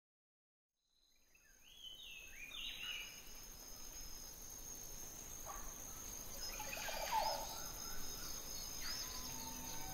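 Tropical rainforest ambience fading in about a second in: a steady high-pitched insect drone with scattered bird calls over it.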